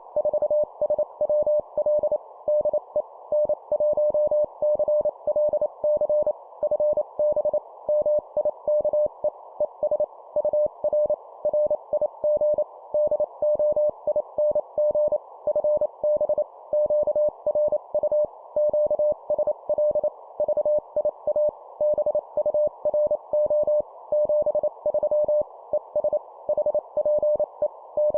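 Morse code (CW) sent at 25 words per minute as one steady tone keyed rapidly on and off in dots and dashes, over a continuous hiss of band noise, as in an amateur-radio contact (QSO) exchange.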